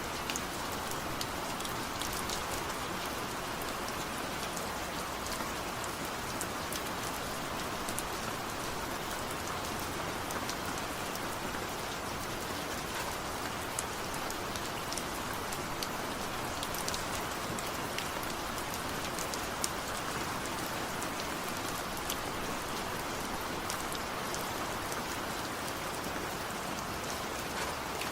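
Steady rain falling, an even hiss of drops with scattered light ticks of individual drops striking a surface.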